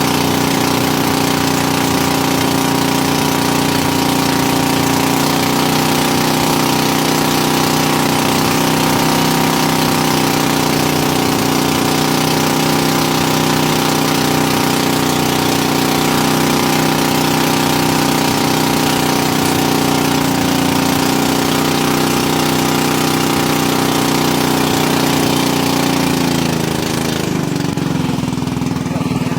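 A fishing boat's engine running steadily at speed, with a steady hum and a hiss of wind and water over it. Near the end the engine note drops lower and the hiss falls away.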